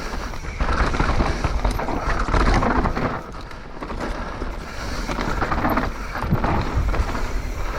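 Mountain bike descending a rough, dusty dirt trail: steady tyre noise on the dirt with many knocks and rattles from the bike over bumps, and wind on the microphone.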